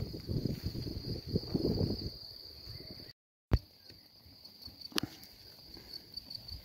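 Crickets chirping, a continuous high trill that breaks into evenly pulsed chirps near the end. Under it is a low rumbling noise, loud for the first two seconds. About three seconds in the sound drops out briefly, then comes a knock, and a sharp click follows about five seconds in.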